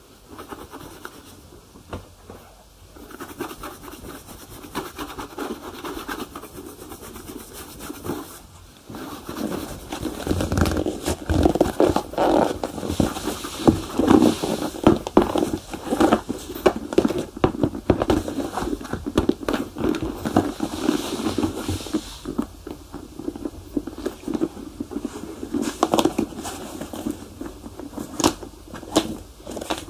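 Shoe polishing by hand: quick scratchy rubbing strokes on shoe leather, quieter at first, then louder and busier from about nine seconds in.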